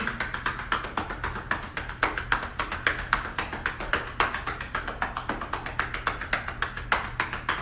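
Hands patting rapidly and evenly on a person's back, many pats a second: chest physiotherapy percussion, done to break up and loosen mucus in the lungs.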